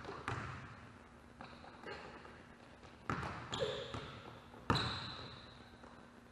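Basketballs bouncing on a hardwood gym floor: about five irregular bounces, each echoing in the large hall. There are a couple of short high sneaker squeaks in the middle.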